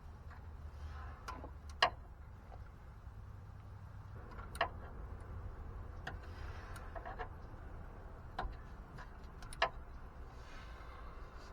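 Scattered sharp clicks and taps of hand tools working on a seized starter bolt, about half a dozen at uneven intervals, the loudest a couple of seconds in, over a low steady rumble.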